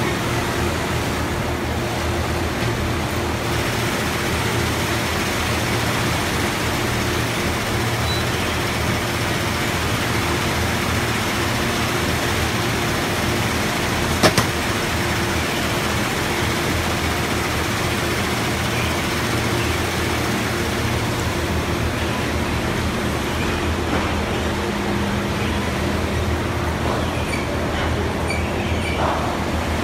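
Steady din of running industrial machinery in a bulk-bag (FIBC) sewing workshop, a constant mechanical noise with a low hum, broken once about halfway through by a single sharp click.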